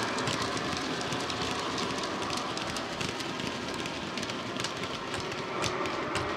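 Model railway freight wagons rolling past on the track, a rapid irregular patter of small clicks from their wheels running over the rail and rail joints.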